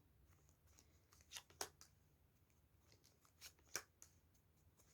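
Tarot cards being handled in near silence. A few short paper rustles and flicks come in two small clusters, about a second and a half in and again near four seconds.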